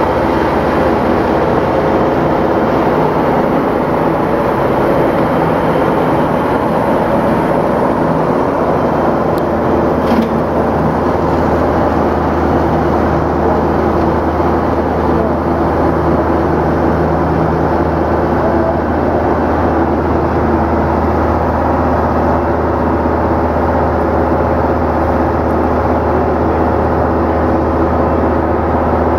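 Diamond-bladed concrete saw running steadily: a loud, constant machine drone, with one short click about ten seconds in.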